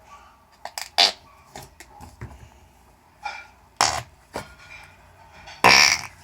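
Flarp noise putty pressed in its tub, letting out a series of short fart noises of varying length; the longest and loudest comes near the end.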